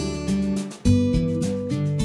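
Background music of strummed acoustic guitar moving through chords, with a short break and a fresh strum a little under a second in.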